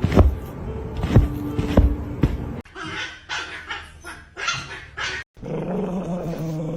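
A dog barking and growling: a few sharp barks or knocks in the first couple of seconds, then a steady low growl near the end.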